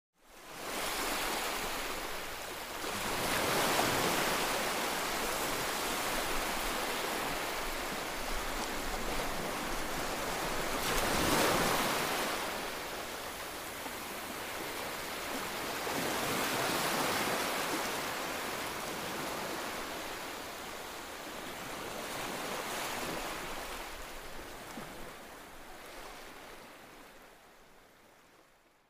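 Ocean surf on a sandy beach: a steady wash of breaking waves that swells every five to seven seconds as each wave comes in, fading out near the end.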